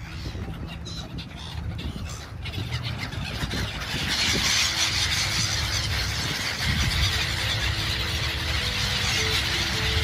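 A large flock of gulls calling all at once, a dense continuous chorus that swells in about four seconds in, over a low traffic rumble.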